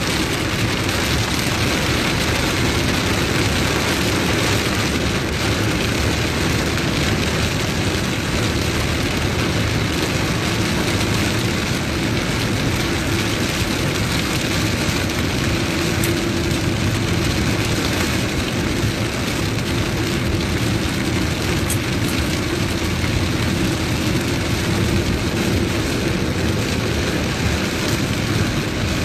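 Heavy rain beating on a car's roof and windscreen, heard from inside the cabin over steady engine and road noise while driving.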